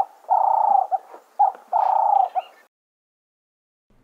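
A dove cooing: two matching three-note phrases, each a short note, a longer drawn-out note, then a short note. The calls cut off abruptly about two thirds of the way in.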